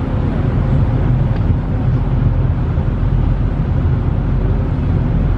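Steady low rumble of a ferry's engines under way, heard on deck, with wind on the microphone.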